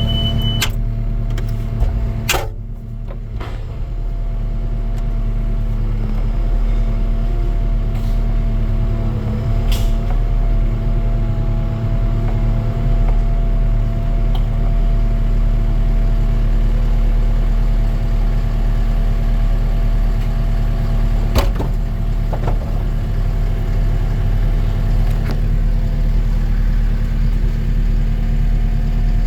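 Industrial recycling baler's hydraulic power unit running with a steady low hum during a bale-eject attempt, with a few sharp clicks and knocks, including one about two seconds in and another near twenty-one seconds.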